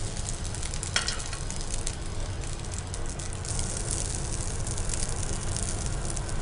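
Rice sizzling in a hot pan, with a spatula stirring and scraping it out and a sharp click about a second in.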